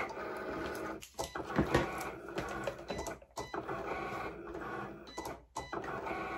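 Cricut cutting machine running a cut in wood veneer: the carriage and roller motors whirr steadily as the blade head and mat move, with brief pauses about every two seconds as it changes direction. It goes over the cut several times at high pressure to get through the wood.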